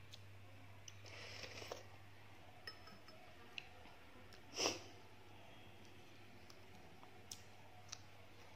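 Close-miked eating sounds from balut and fresh herbs: scattered soft mouth clicks, a short crackle about a second in, and one louder wet mouth sound about halfway through.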